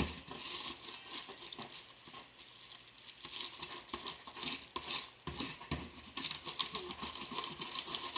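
Plastic tarp skirt and tape crinkling and rustling under the hands as they are handled and smoothed down, in a continual run of irregular small crackles.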